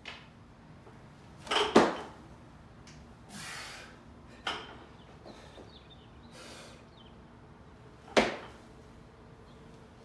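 Barbell snatch and snatch balance: a loud sharp impact of the catch a little under 2 s in as the feet stamp and the bar's plates rattle, a smaller knock around 4.5 s, and another sharp catch impact around 8 s. Short hard breaths of the lifter fall between them.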